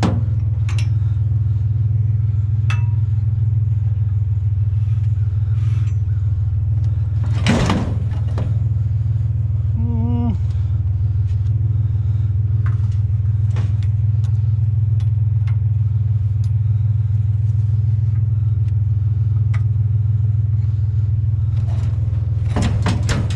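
Pickup truck engine idling steadily, with light clicks and knocks now and then as the load is strapped down with a bungee cord, and a brief louder noise about seven and a half seconds in.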